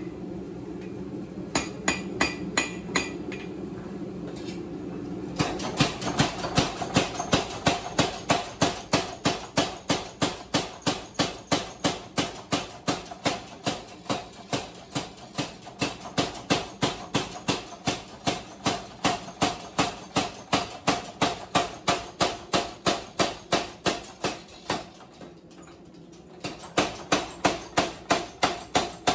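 Blacksmith forging a red-hot railway spike: a few separate hammer blows on the anvil, then about five seconds in a power hammer starts pounding it at a steady rate of about three blows a second. The blows stop briefly near the end, then start again.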